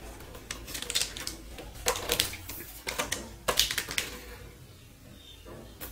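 A series of light clicks and taps as a JBL car amplifier's casing is handled and turned over in the hands.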